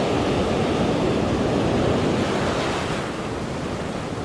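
Sea waves washing onto the shore, with wind on the microphone; the wash eases a little about three seconds in.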